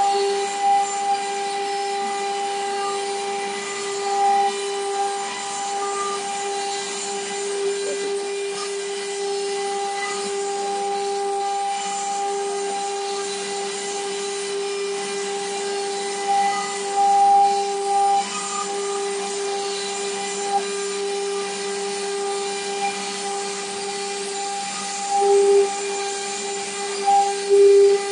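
Water-cooled stone CNC router spindle running while its cutter carves grooves into a stone slab: a steady whine over grinding noise, with a few brief louder swells.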